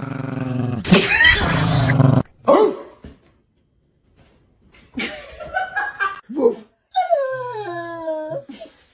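A pet dog vocalizing in reaction to being barked at by its owner: a long, raspy, drawn-out sound at the start, then after a pause a few pitched cries, the last one sliding down in pitch.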